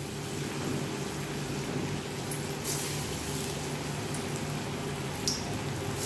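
Jackfruit kofta balls deep-frying in hot oil in a wok, sizzling and bubbling steadily. The sizzle surges briefly about two and a half seconds in as another ball goes into the oil, and there is a short click near the end.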